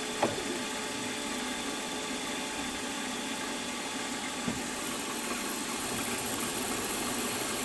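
Milling machine running steadily with a drill in its spindle, a high thin whine growing a little stronger in the second half. A faint click comes just after the start and another a little past halfway.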